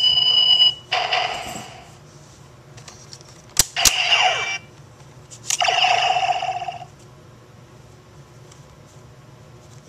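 DX Decadriver toy transformation belt playing electronic sound effects from its small speaker: a steady high standby beep, then two sharp plastic clicks as the belt's sides are pushed shut about three and a half seconds in. Two bursts of electronic transformation effects follow, the last ending about seven seconds in.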